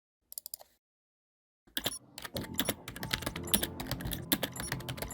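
Typing on a computer keyboard: a brief flurry of key clicks, a pause, then rapid, dense keystrokes from about one and a half seconds in, with faint steady tones underneath.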